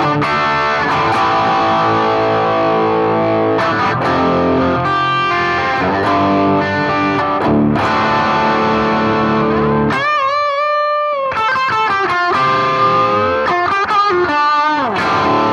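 Gibson Les Paul Studio electric guitar with humbucking pickups, on the bridge pickup, played through a BOSS GT-1000 amp modeller's high-gain crunch channel. It plays distorted rocky chords and riffs. About ten seconds in comes a single sustained note with vibrato, then several string bends.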